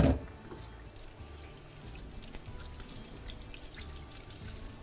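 A sharp knock right at the start, then tap water running into a sink and splashing as raw chicken pieces are rinsed under it.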